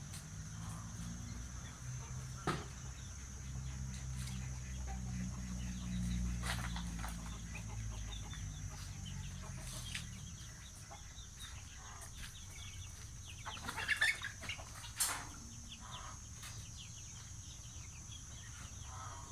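Bird calls in short, sharp clucking bursts, loudest in a cluster about three quarters of the way through, over a low steady hum that fades after about the first half.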